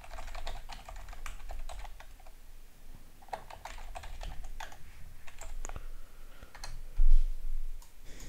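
Typing on a computer keyboard: irregular key clicks, with one dull low thump about seven seconds in.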